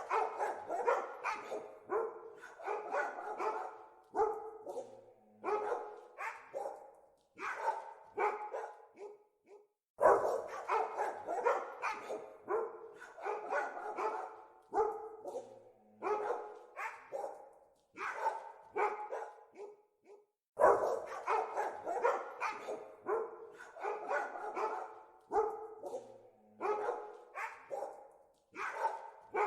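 Dogs barking in quick, dense runs of several barks a second. The same roughly ten-second stretch of barking repeats over and over in a loop.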